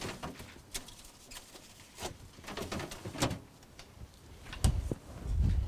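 Refrigerator being rummaged: light clicks and knocks as items are moved inside, then the door swung shut with a low thud near the end, followed by a second, longer low thump.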